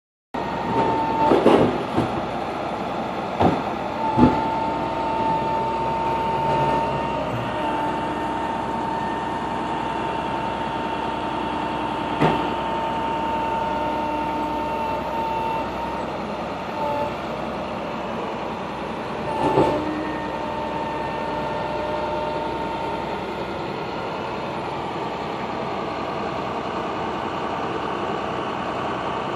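A work truck's engine running steadily, with a steady high whine that fades out about two-thirds of the way through and a few sharp knocks scattered over the first part.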